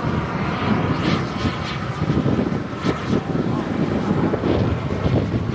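Miniature turbine engine of a model jet flying past overhead: a steady jet rush with a faint whine, over a heavy low rumble.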